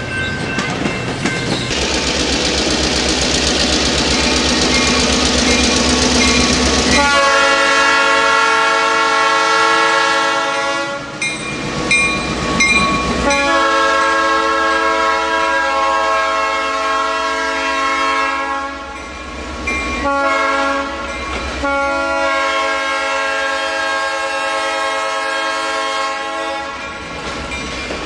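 A real train rumbling and rattling past, then a diesel locomotive's multi-note air horn sounding several long blasts with short breaks between them.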